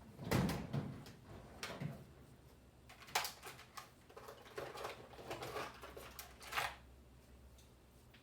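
Irregular clicks, taps and short scrapes of a small screwdriver and small laptop parts being handled on a work surface. The sharpest come just after the start, about three seconds in and near six and a half seconds.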